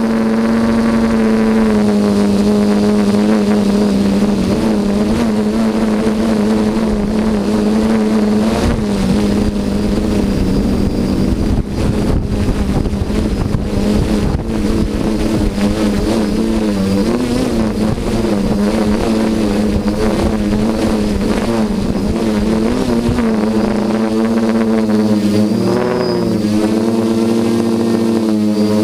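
HT-FPV Hoverthings quadcopter's electric motors and propellers buzzing in flight: a steady multi-toned drone whose pitch wavers up and down with the throttle, over a low rushing noise that is strongest midway.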